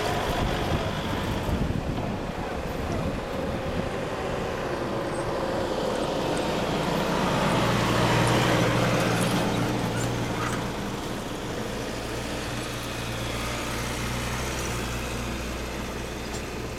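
A 4x4 pickup's engine pulling an off-road camping trailer up a soft sand track. The engine drone grows loudest about eight seconds in as the vehicle passes close, then eases off.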